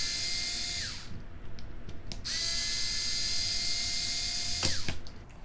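Cordless screwdriver running in two bursts to back out screws. Each burst is a steady whine that winds down in pitch as it stops: the first ends about a second in, and the second starts around two seconds in and runs for about two and a half seconds. Light clicks fall in the pause between them.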